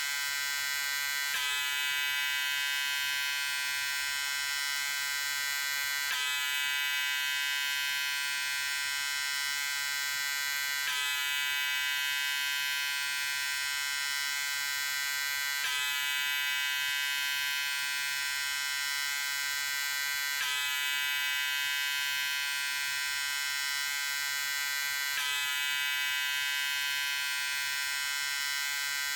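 Electric shaver running with a steady buzz of many even overtones, its pitch unchanging. A slight seam recurs about every five seconds.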